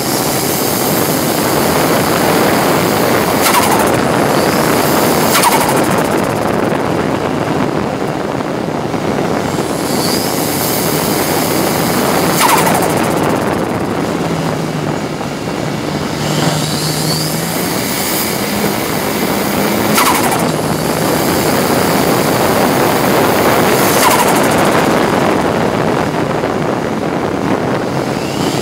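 In-car sound of a Ford Sierra RS Cosworth racing car at speed: its turbocharged four-cylinder engine running hard, the note rising and falling through the gears. Over the engine run heavy road and wind noise, a few rising whines, and about five sharp cracks spread through the stretch.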